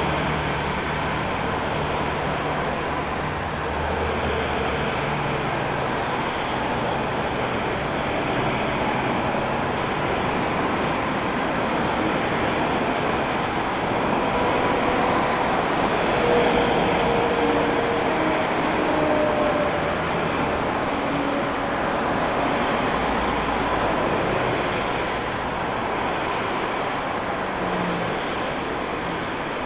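Twin-engine Airbus A320-family jet airliner landing: a steady roar of its engines and rushing air, swelling a little about halfway through as it touches down.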